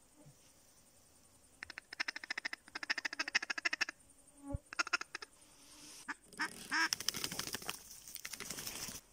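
Wild ducks calling in bursts of rapid quacks as flocks fly overhead. A thump comes about four and a half seconds in, and a louder noisy stretch follows near the end.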